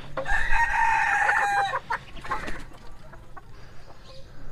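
A rooster crowing once, a call of about a second and a half that drops slightly in pitch at the end, followed by a few fainter clucks.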